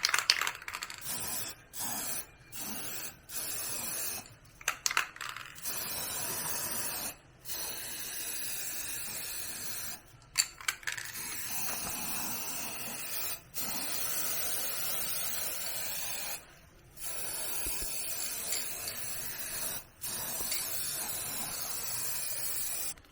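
Repeated bursts of spraying hiss, each lasting from about a second to several seconds, with short breaks between them. Light metallic clinks come near the start and again around a quarter and halfway through.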